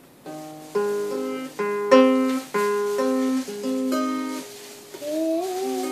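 Small pink acoustic guitar strummed slowly, about ten chords one after another, each left to ring briefly. About five seconds in, a girl's voice starts humming along, sliding up into a held note.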